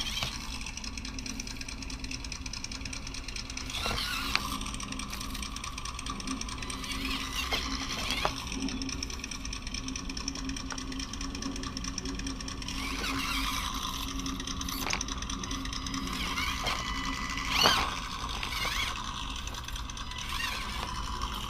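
Simulated engine sound from a micro RC truck's D4L radio, played through a small speaker in a 3D-printed speaker box, running steadily and swelling up and down as the truck is driven. A few sharp clicks sound along the way.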